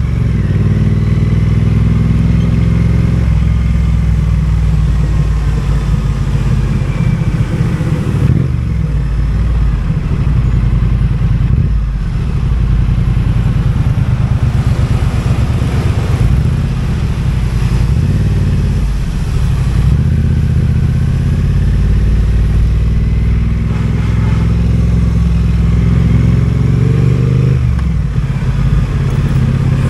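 Triumph Speed Twin 900's parallel-twin engine running under way, heard from the rider's position. The engine note climbs in pitch for the first few seconds and again near the end, dropping suddenly after each climb as the bike shifts up a gear.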